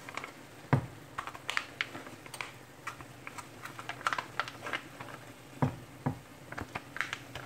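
Irregular light crinkles and clicks as a foil pouch of chunk light tuna is handled and emptied into a skillet. Two sharper knocks come about a second in and a little after five seconds.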